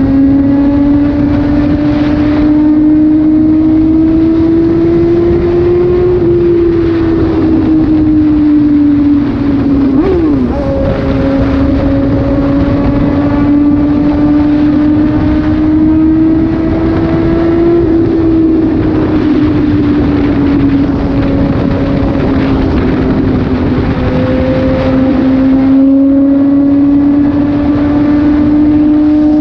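Suzuki GSX-S750 inline-four engine running loud through an SC-Project exhaust with the dB killer removed. Its pitch climbs slowly and eases back twice, with a quick dip about ten seconds in.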